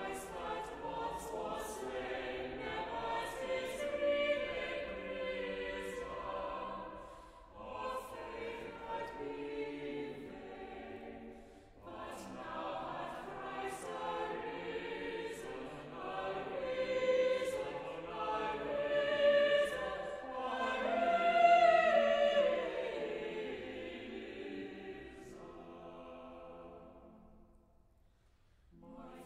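Choir singing in long phrases; the last phrase fades away just before the end, and a new one begins right at the end.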